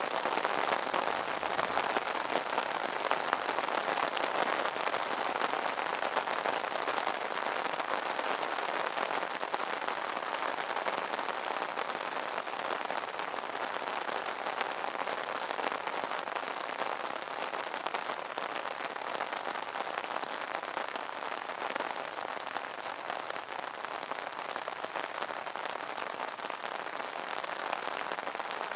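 Rain pattering steadily on an umbrella's fabric canopy, a dense, even hiss of many small drop hits.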